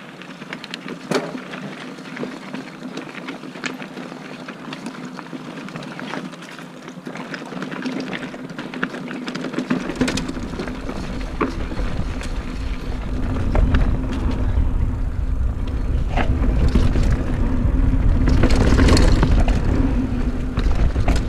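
Mountain bike ridden over rough trail, with frequent sharp knocks and rattles from the bike and a faint steady hum. About halfway through a low rumble sets in and the whole sound grows louder.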